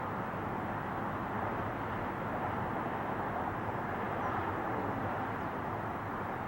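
Steady jet engine noise from a four-engine Airbus A340, an even rushing sound with no change in level.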